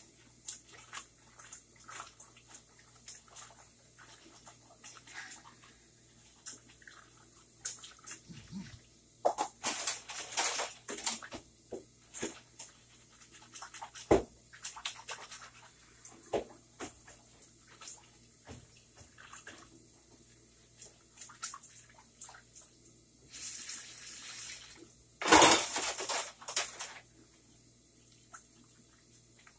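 Dishes and utensils clinking and knocking at a kitchen sink, with the tap running in short spells; the longest run of water comes about 24 s in, just before the loudest clatter.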